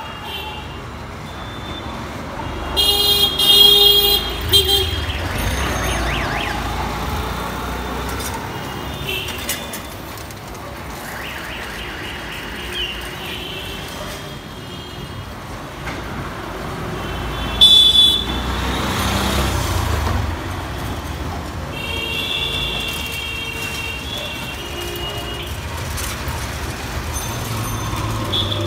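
Busy street traffic with a steady low rumble, broken by several vehicle horn toots, the loudest about three seconds in and again near eighteen seconds.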